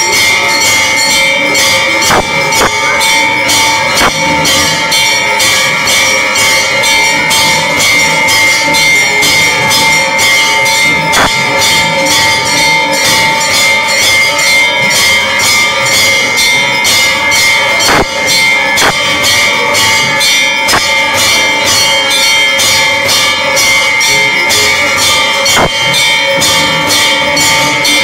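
Temple ritual music: bells ringing continuously over a fast, even beat of percussion strikes, about three or four a second, with a few louder single strikes now and then.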